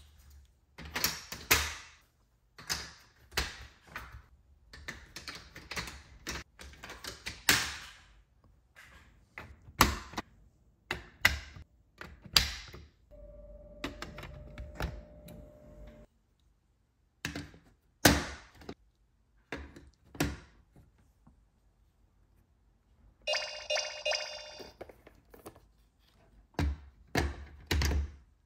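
Hard plastic marble run pieces being fitted and snapped together: a long irregular string of sharp clacks and knocks. Late on, the set's light-up electronic piece gives a short electronic tone.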